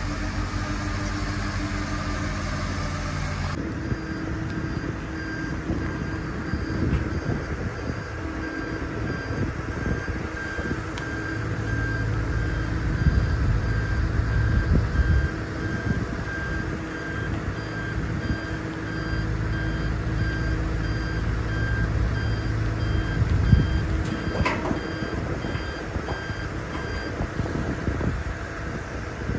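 Heavy vehicle's reversing alarm beeping at an even pace, a single-pitched beep repeated over and over, over the low rumble of its running engine. The beeping starts about four seconds in and stops near the end.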